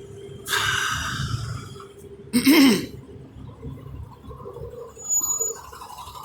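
A truck's air brake system venting compressed air in a short hiss about half a second in, fading over about a second; the driver says the truck releases this air automatically. A little later comes a brief vocal sound with a bending pitch.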